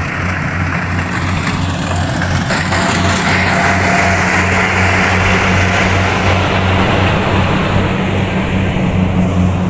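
Kubota DC-70G combine harvester's diesel engine running steadily with a low, even hum. A rushing noise from the machine builds about three seconds in.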